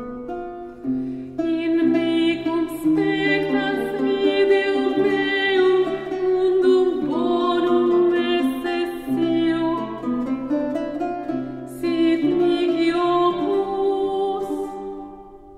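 Slow background music with long held notes, fading out near the end.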